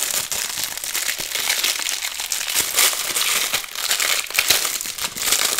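Thin clear plastic packaging bag crinkling continuously as hands handle and unwrap it, a dense run of small crackles.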